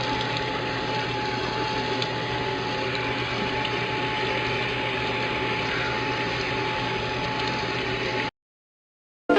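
A steady hum and hiss with one constant tone running through it, cutting off suddenly near the end.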